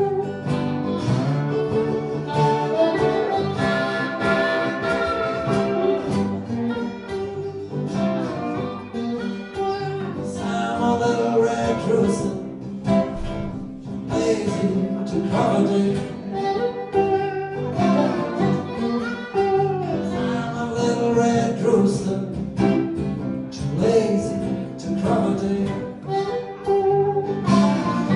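Blues trio playing an instrumental passage: harmonica played into a cupped hand-held microphone over two guitars, one an acoustic tenor guitar, with long held harmonica notes above the strummed and picked chords.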